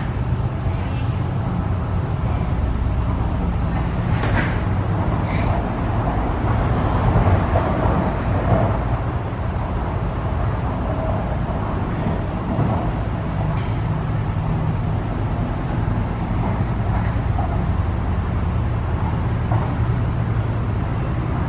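Steady running noise inside an MTR East Rail Line R-Train carriage, the rumble of the train's wheels on the track with motor hum. A few short clicks come about four seconds in and again near the middle.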